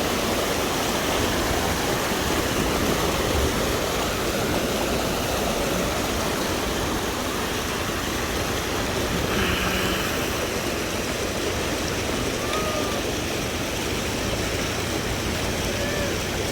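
Waterfall's rushing water, a steady, even rush of noise.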